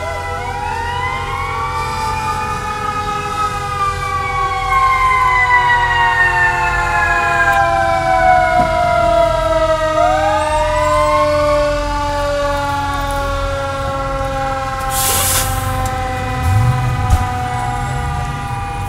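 Fire engine siren winding up sharply twice, near the start and about halfway through, and falling away slowly each time, over a low engine rumble. A short hiss comes about three quarters of the way in.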